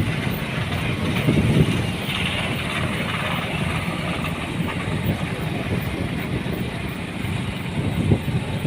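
A road vehicle's engine running with road noise while driving: a steady low rumble with a hiss above it.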